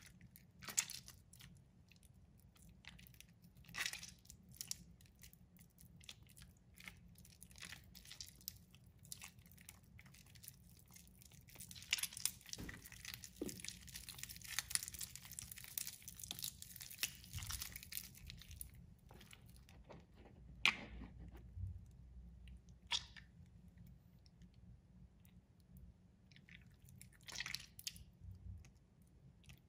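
A water-soaked bar of soap being squeezed and crumbled by hand, giving soft wet crunches and crackles as it breaks into flakes. The crackling comes in scattered bursts and is densest about twelve to eighteen seconds in.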